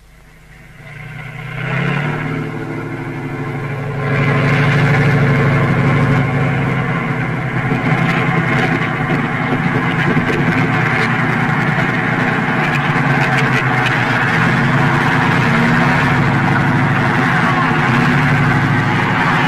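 Tanks driving past with their engines running and their tracks clattering. The engine rumble fades in about a second in, gets louder at about four seconds, and then holds steady.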